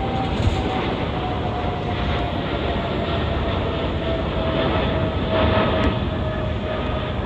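Boeing 777 airliner's jet engines roaring steadily as it climbs away after takeoff, with a single whining tone in the engine noise that slowly falls in pitch.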